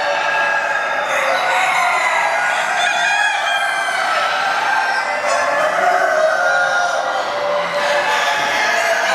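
A hall full of caged show chickens calling all at once: roosters crowing over one another and hens clucking in a steady, dense chorus with no pauses.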